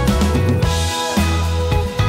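Background music: an instrumental track with drums and bass.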